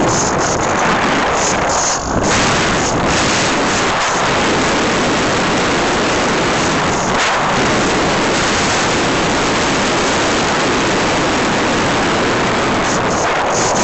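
Light aircraft in flight: a loud, steady rush of wind and engine noise, with a brief dip about two seconds in.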